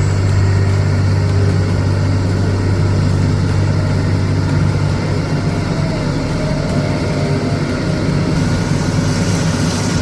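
Heavy diesel engine of a construction machine running steadily, a constant low drone.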